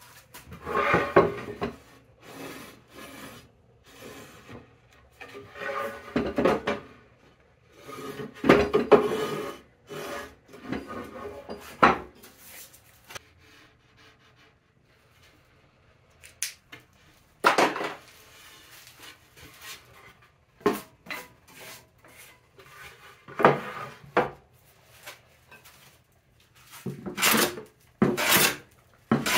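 Hand plane shaving a sassafras board in separate strokes of about a second each, with pauses between. Short knocks of wood being handled fill the quieter middle stretch.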